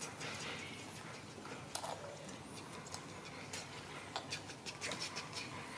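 Faint scattered clicks, slurps and little squeaks of a baby monkey drinking juice from a plastic cup, its lips and teeth working at the rim. The clicks come more often in the second half.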